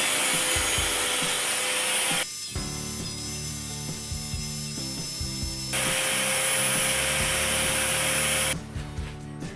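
An electric power tool's motor runs in two bursts, about two seconds and then about three seconds long, with a steady whine. Background music plays in the gap between them.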